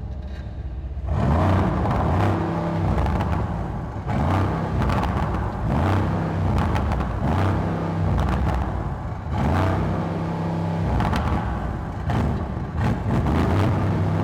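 Mercedes-AMG GLC 63 S's twin-turbo V8 engine and exhaust revving in repeated surges, the pitch rising and falling again and again.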